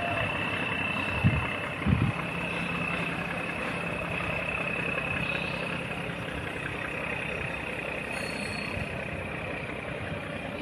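A barge's diesel engine running steadily: a constant drone with a steady high whine on top. Two short low thumps come a little after one second and at about two seconds.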